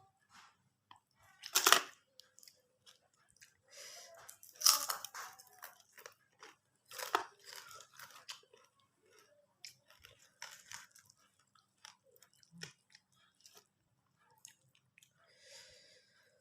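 Close-up chewing and crunching of crisp food, with loud crunchy bites about two seconds in, near five seconds and around seven seconds, and softer clicky chewing between.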